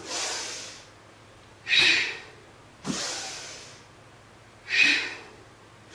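A woman breathing loudly and deeply, in and out in a steady rhythm: about five breaths, some short and sharp, others longer and fading away.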